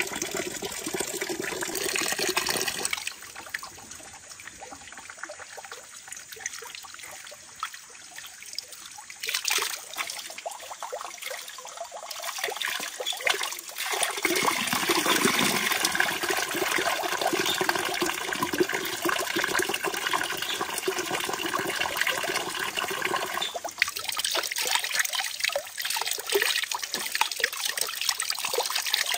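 Running water trickling and splashing. The sound changes abruptly about 3, 14 and 24 seconds in.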